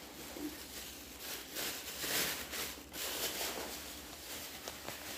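Quiet rustling and handling noises.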